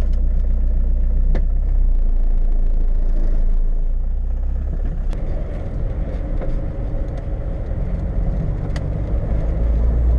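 Volkswagen Polo 1.4D's naturally aspirated four-cylinder diesel engine running under way, heard from inside the cabin shortly after a cold start. The engine note shifts in pitch and drops a little in loudness about halfway through.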